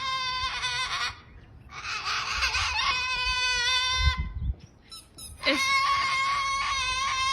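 Cockatoo screeching in long, drawn-out wails, three in a row, each one to two and a half seconds long, with short gaps between. It is a sulking protest at being kept from playing with the dogs, which the owner calls drama.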